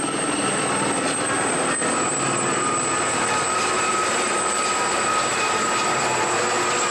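Aérospatiale Gazelle helicopter flying a display manoeuvre overhead: a steady turbine and rotor sound with a faint high whine.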